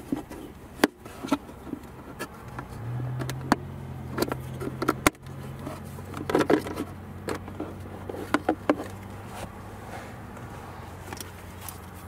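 Handling noise from working a 12 V extension cable through a car's plastic centre console: scattered clicks, knocks and rattles of plastic and cable. A low steady hum comes in about three seconds in.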